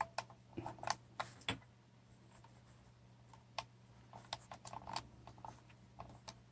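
Faint, irregular small clicks and scrapes of hard plastic being handled as a short hollow tube is pressed into the snapped vacuum nipple of a boost controller, over a steady low hum.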